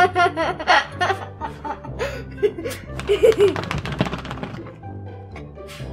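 A girl laughing in several bursts over steady background music.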